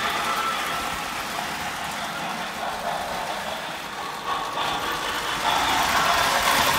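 Lionel MPC Great Northern steam locomotive running with its freight cars on three-rail O-gauge track: the motor and the wheels on the rails, with its electronic RailSounds steam sound. It grows louder near the end as the engine comes round toward the microphone.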